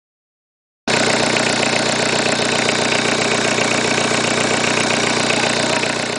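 Peugeot 306 car engine idling steadily, cutting in abruptly about a second in.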